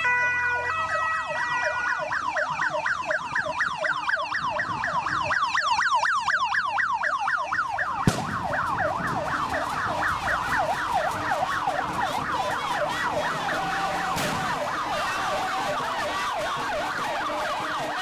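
Vehicle siren yelping, its pitch sweeping rapidly up and down about four times a second. At the start it sounds a string of short steady tones at stepped pitches before switching to the yelp. A sharp click comes about eight seconds in.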